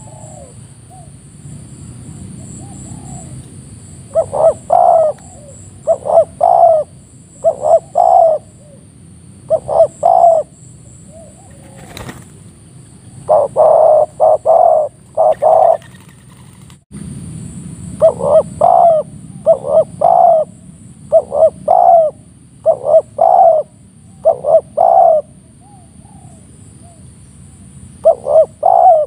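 Spotted doves cooing over and over in short phrases of two or three coos, one phrase every second or two, with a pause of a few seconds around the middle. A single sharp click comes near the middle.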